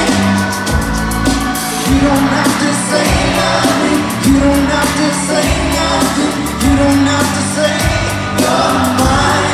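Live pop concert heard from the stands of an arena: a band playing with drums and bass while the lead singer sings, loud and echoing in the big hall.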